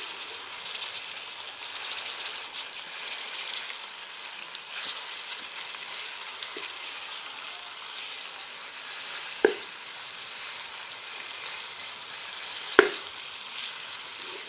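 Chicken frying in hot oil in a pot, a steady sizzle. Two sharp knocks about three seconds apart come near the end.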